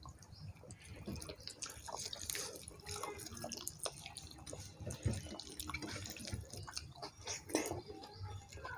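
Faint wet eating sounds: chewing and lip smacks as people eat soft khichuri by hand, with fingers squishing and mixing the rice on plates, heard as scattered small clicks.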